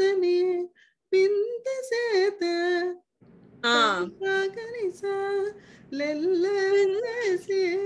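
A woman singing short phrases of a Carnatic song in raga Suddha Dhanyasi, the notes sliding and wavering between pitches, with brief breaks between phrases.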